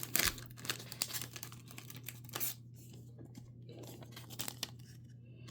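Thin plastic card sleeves crinkling and rustling as they are handled, a trading card being sleeved. The crackle is densest in the first half, with sharp bursts near the start and about halfway through, then quieter handling, all over a steady low electrical hum.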